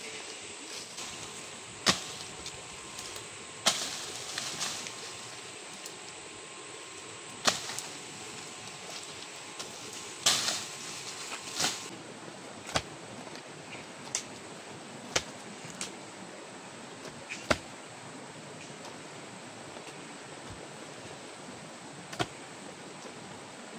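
Hand hoes chopping into a dirt bank: about a dozen sharp strikes of the blades into soil and roots, irregularly spaced and some louder than others, over a steady background hiss.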